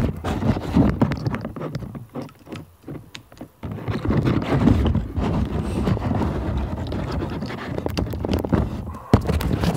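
Handling noise right on the recording device's microphone: rubbing and scraping with many scattered clicks and knocks, as cables and connectors are handled.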